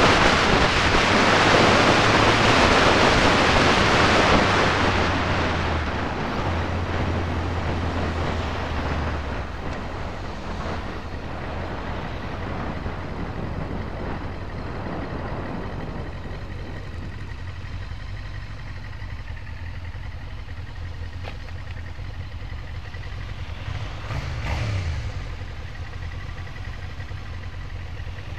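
Yamaha YZF-R6's 600 cc inline-four engine running at low road speed, with wind rushing over the microphone for the first five seconds or so; the bike then slows and the engine settles to a quieter, steady low running. About 24 seconds in there is a short rise in engine pitch, like a brief rev.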